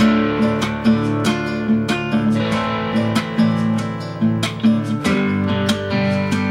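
Instrumental film-score music of strummed acoustic guitar chords in a steady, quick rhythm, coming in fully and suddenly at the start.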